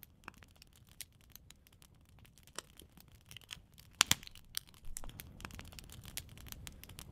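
Fire crackling: irregular snaps and pops over a low rumble of burning that grows fuller after about five seconds, with one sharp, loud pop about four seconds in.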